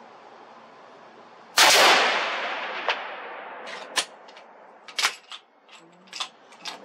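A single rifle shot about a second and a half in, its report trailing away over about two seconds. It is followed by a scatter of short, sharp clicks and clacks.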